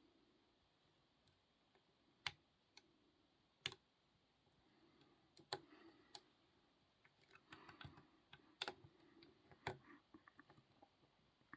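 Faint metallic clicks and small rapid ticks of lockpicking tools working the pins of a small bell padlock, with a few louder sharp clicks spaced a second or more apart.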